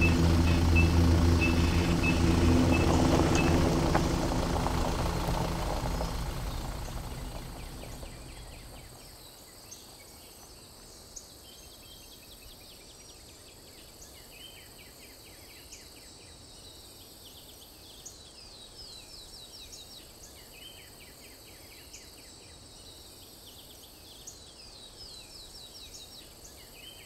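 A vehicle engine running steadily, fading away over the first several seconds, leaving faint outdoor ambience of insects chirping.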